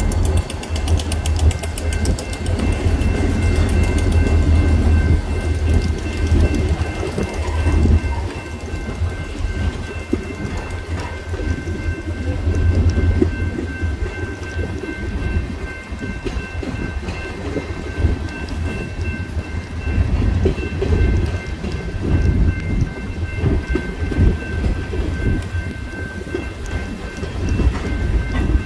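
Freight train rolling through a grade crossing: diesel locomotives rumble past at first, then tank cars roll by with a steady low rumble of wheels and couplers. A crossing signal bell rings steadily throughout, over the hiss of rain.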